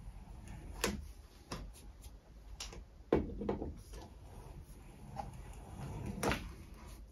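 Hand brace turning a deburring bit in a drilled hole of a small metal crank web held in a drill-press vise: a low scraping rub broken by several sharp clicks, the loudest about three seconds in and again near six seconds.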